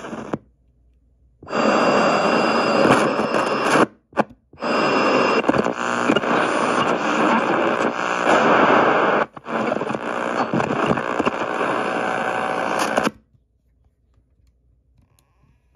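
Sony WM-F102 Walkman's radio played through a small portable speaker, giving a hiss of static between stations. It cuts out briefly just after the start and again around four seconds in, then falls silent for the last couple of seconds.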